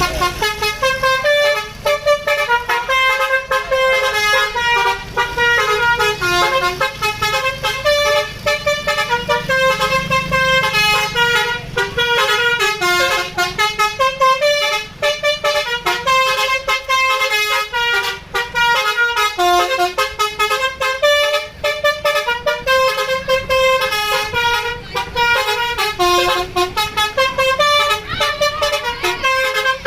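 Bus telolet horn: a multi-tone air horn playing a fast melody of short notes that step from pitch to pitch without a break.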